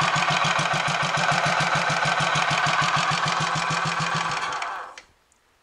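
Royal Enfield 500 Machismo's single-cylinder four-stroke engine idling with an even beat, then cut with the decompression lever and running down to a stop about five seconds in. It sounds a lot better now that a spindle with an oil hole, previously fitted the wrong way round, has been corrected.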